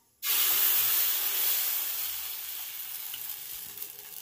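Adai batter sizzling as it is poured onto a hot iron pan, the sizzle starting suddenly and slowly dying down.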